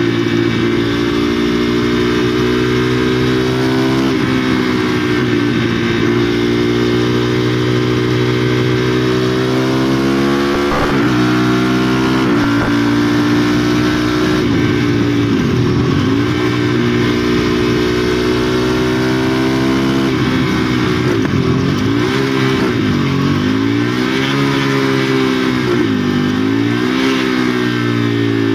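KTM Duke 390's single-cylinder engine, fitted with a no-cat exhaust, running under load at riding speed. Its pitch climbs and drops repeatedly as the rider works the throttle and gears through the bends, with several quick dips and recoveries near the middle and a run of rises and falls near the end.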